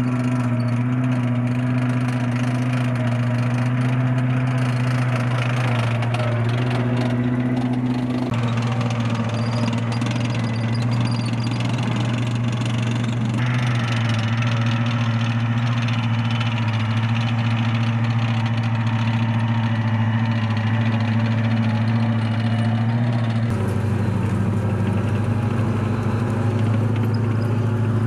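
Bradley fighting vehicle's V8 diesel engine running steadily as the vehicle drives, a constant deep hum. The sound shifts abruptly a few times, about 8, 13 and 23 seconds in.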